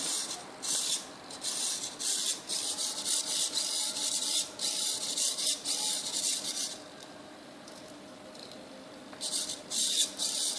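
Small hobby servo whirring in quick repeated bursts as it swings left and right under joystick control over an RF link. It stops for about two seconds, then whirs again a few times near the end.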